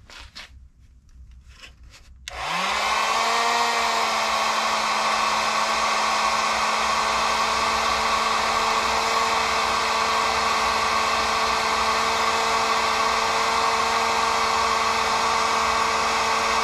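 After a few faint clicks, a heat gun is switched on about two seconds in. Its fan motor spins up with a short rising whine, then runs steadily with a level hum and rush of air.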